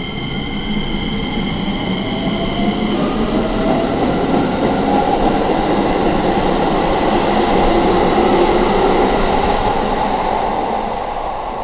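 Keikyu 1000 series six-car electric train pulling out and accelerating past, its traction motors whining upward in pitch over the first few seconds as a set of steady high tones cuts out. The wheel and running noise builds to its loudest about eight seconds in, then fades as the train draws away.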